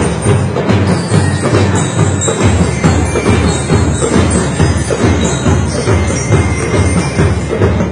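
A drum and lyre band playing: marching drums beat a steady rhythm while bell lyres ring out the tune above them.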